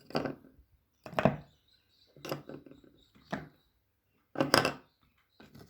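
A series of six short, sharp knocks or clacks of hard objects, about one a second.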